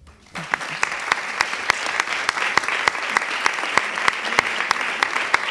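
Audience applauding, breaking out just after the start and going on steadily, with single sharper claps standing out from the mass.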